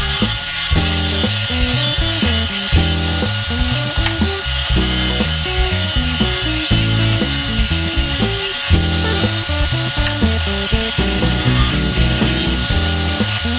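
Background music with a bass line that changes note every fraction of a second, over the steady whine of an electric drill spinning wood as a mini lathe.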